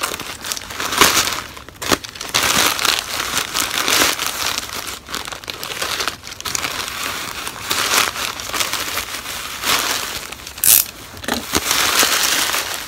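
Plastic courier mailer bag crinkling and rustling in the hands as it is worked open, in irregular bursts, with one sharper, louder crackle near the end.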